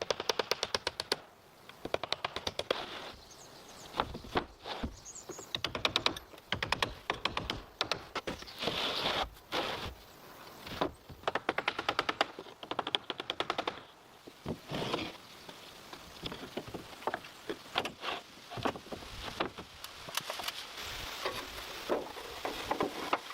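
Repeated bursts of rapid, sharp clicking or tapping, in quick runs with short gaps between them.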